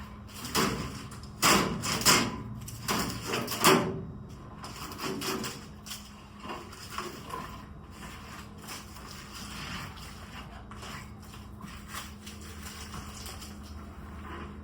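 Knocks and scrapes from clearing soybean straw and dirt off a combine's flex grain head by hand. A burst of them comes in the first four seconds, then quieter scattered ones, over a steady low hum.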